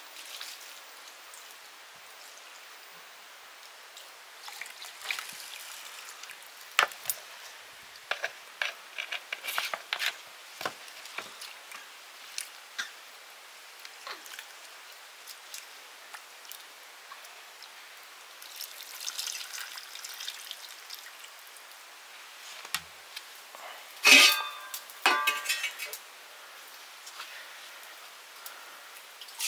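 Intermittent clinks and knocks of metal pots and kitchen utensils being handled, with one loud clank of a metal vessel that rings briefly near the end.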